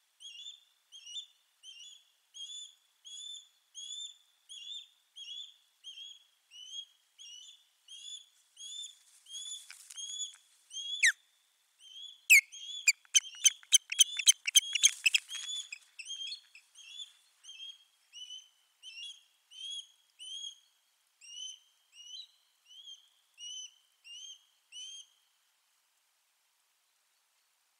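Osprey alarm calling: a steady series of short, upslurred whistled notes, about two a second, with a louder, faster run of sharp calls about twelve to sixteen seconds in. The calling, typical of an osprey defending its nest against a rival overhead, stops a few seconds before the end.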